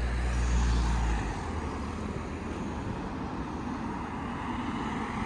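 Street traffic: a low engine rumble for about the first second, then a steady wash of passing cars.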